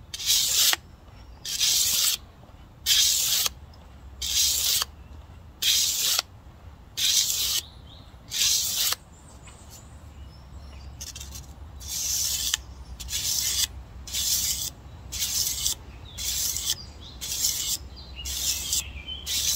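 A steel knife edge is drawn back and forth across an 800-grit abrasive sharpening block, each pass a short gritty hiss. The first series comes about every second and a half; after a pause of about two seconds a second, quieter series follows at about two strokes every one and a half seconds. This is a counted set of strokes, one set per side of the blade to keep the edge even.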